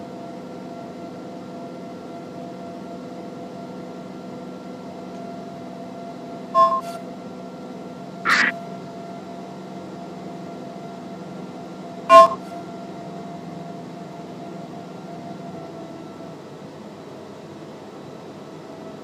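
Steady drone of the Cessna P210R's piston engine and propeller in cruise flight, heard inside the cabin. Three short blips cut in at about six and a half, eight and a half and twelve seconds, the last the loudest.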